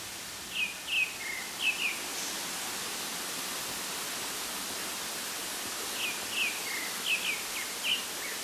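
A small songbird singing two quick phrases of short, high, down-slurred chirps, one about half a second in and another about six seconds in, over a steady hiss.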